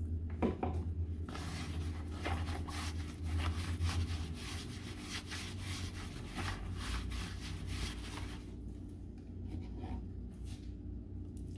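Hands squeezing and kneading soft wheat-flour tortilla dough in a plastic bowl: irregular rubbing and squishing strokes, thinning out near the end.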